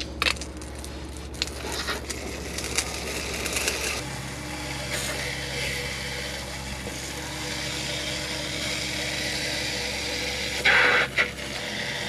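Garden hose spray nozzle spraying water under a mini-fridge onto a stone patio: a few clicks as the nozzle is handled, then a steady hiss of spraying water starting about four seconds in, with a brief louder burst near the end.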